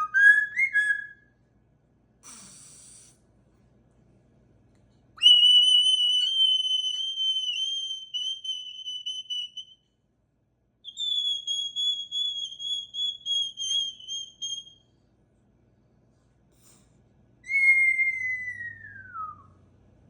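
Moluccan cockatoo whistling a series of sound effects: a short rising whistle, a brief hissing burst, then two long, high, steady whistles with a slight waver, each several seconds long. Near the end comes a whistle that glides steadily downward.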